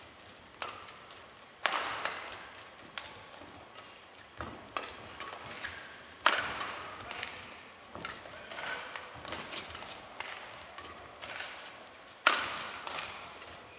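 Badminton doubles rally: a quick run of sharp racket strikes on the shuttlecock, echoing in a large indoor hall. The hardest hits come about two seconds in, midway, and near the end.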